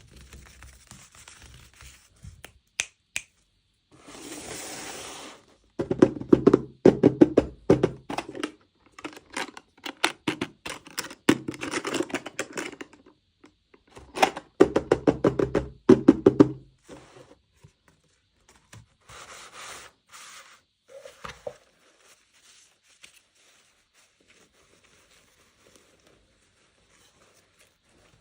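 Toy packaging being handled and opened close to the microphone: a few sharp clicks, a short rustle, then dense crackling runs of clicks and crinkles, easing off to sparse, quiet handling in the second half.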